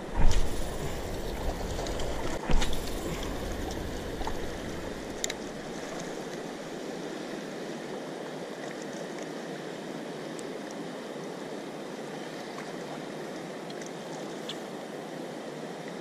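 Fast water rushing below a dam spillway, a steady noise. It is broken by two loud low buffets on the microphone in the first three seconds and a few smaller ones after.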